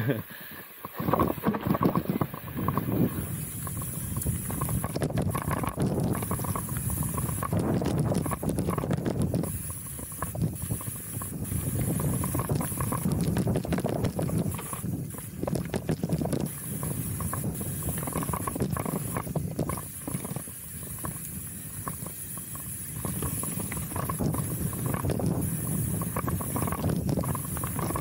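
Chromag Rootdown steel hardtail mountain bike descending a dirt trail: tyres rolling over dirt and roots, with the bike rattling and knocking over bumps and wind rushing on the microphone.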